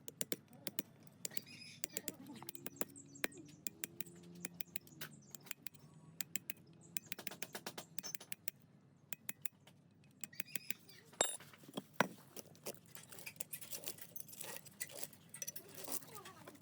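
Irregular light clicks and taps of hand work on metal parts, with two sharper knocks about eleven and twelve seconds in.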